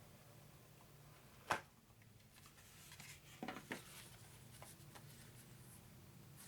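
Quiet handling of a cardboard game box being opened: one sharp tap about a second and a half in, then a few light knocks a couple of seconds later, over a faint low hum.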